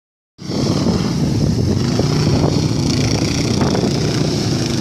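Kart cross (off-road buggy) engine running steadily, with no revving.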